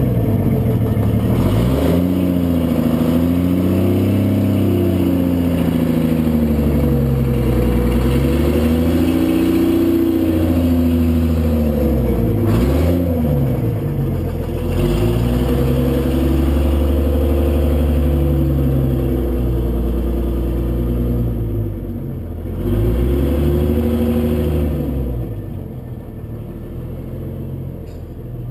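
Detroit Diesel 6-71 two-stroke diesel of a 1955 GM TDH-4512 bus, running with only a short 4-inch elbow on the exhaust manifold and no exhaust system, revving up and falling back again and again as the bus drives around. It fades away over the last few seconds as the bus moves off.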